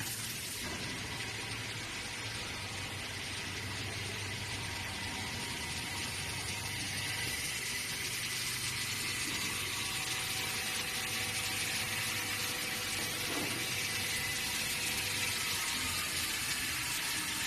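Table saw running steadily, a constant whir with a faint high whine and no clear cut into wood.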